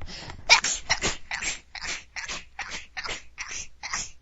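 A person sneezing in a rapid series of small, high, squeaky sneezes, about ten of them, two to three a second, like a rabbit's sneezes.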